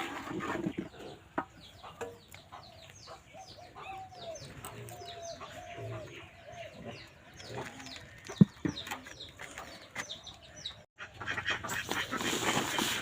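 Chickens clucking and calling, with many quick high falling chirps throughout. A sharp knock comes about eight seconds in, and a rustling scrape near the end.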